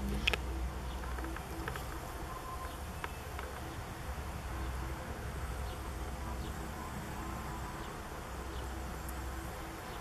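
Outdoor ambience: a faint, steady buzzing of insects over a low, continuous rumble.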